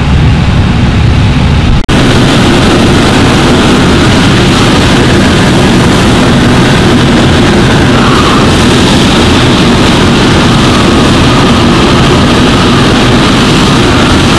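Fire engine's heavy diesel engine and pump running steadily, with the hiss of a fire hose spraying water. About two seconds in the sound drops out for an instant, and afterwards the spray hiss is stronger.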